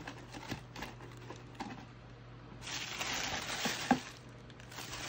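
Wrapping tissue paper in a cardboard shoebox rustling and crinkling as it is handled. Scattered light clicks come first, then a denser burst of crinkling a little past halfway, ending in a sharp tick.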